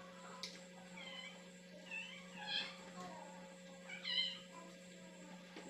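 Cat meowing several times in short, high-pitched calls.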